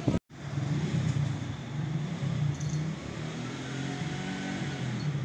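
A motor vehicle's engine running, a steady low hum whose pitch rises in the second half as it speeds up. A brief dropout to silence at the very start.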